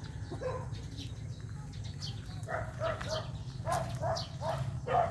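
A dog barking in a quick series, about two or three barks a second, starting about halfway through, over a steady low hum.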